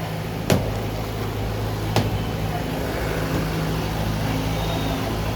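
A motor vehicle engine running steadily with a low hum, with two sharp knocks about half a second and two seconds in.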